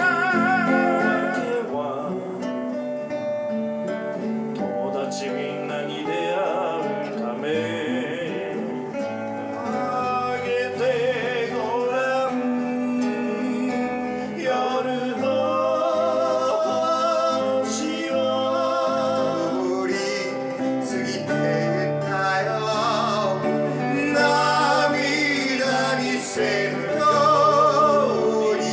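Two men singing with vibrato to their own guitar accompaniment: a strummed acoustic guitar and an archtop guitar.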